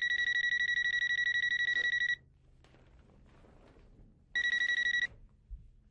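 Home telephone ringing with a high, fast-trilling electronic ring: one full ring of about two seconds, then a second ring that is cut short after under a second as the call is answered.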